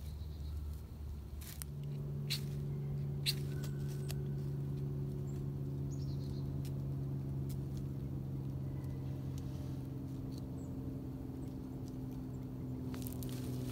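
A motor or engine running steadily off-scene, a low, even hum, with a few sharp clicks in the first four seconds.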